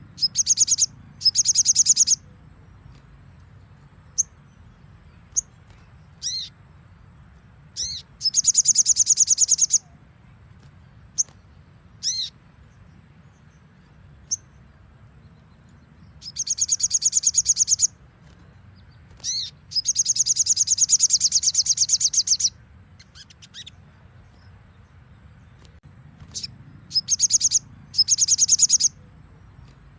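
Crimson sunbird (sogon) singing: a string of rapid, high-pitched trills, each one to two seconds long, the longest about two and a half seconds, with short single sweeping notes between them. A faint steady high whine runs underneath.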